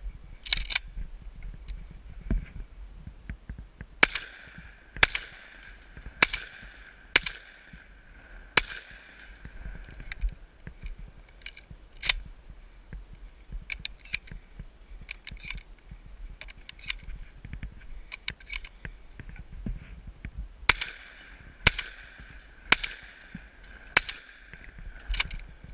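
Shotgun fired in two quick strings of about five shots each, roughly a second apart, with a ringing after the shots. Lighter clicks and rattles between the strings as shells are loaded into the gun.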